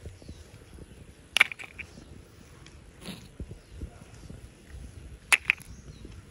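Sharp little clicks and taps of a hard plastic toy figure being handled and picked at by hand. There is one loud click about a second and a half in with a couple of lighter ones after it, and a quick double click near the end, over a low background rumble.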